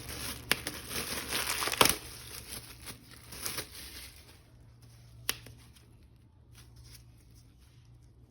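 Plastic toy packaging crinkling and tearing as it is handled and opened. The crinkling is dense and mixed with sharp clicks for the first two seconds, then thins to scattered clicks, with one sharp click about five seconds in.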